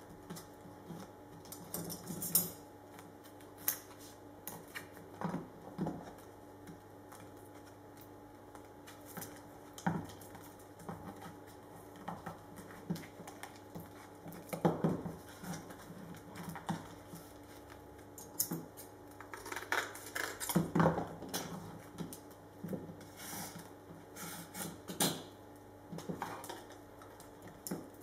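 Hand work on carbon-fibre prepreg at a metal worktable: scattered taps, clicks and handling noises as the sheet is pressed onto a mould, with metal scissors and tools clinking on the table. A faint steady hum runs underneath.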